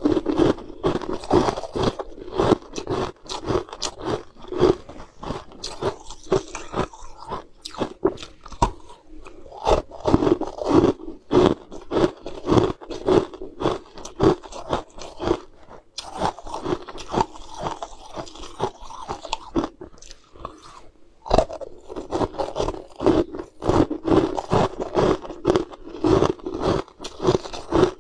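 Close-up crunching and chewing of frozen, frost-coated ice balls bitten off a skewer: a dense run of crisp crunches, broken by a few short pauses.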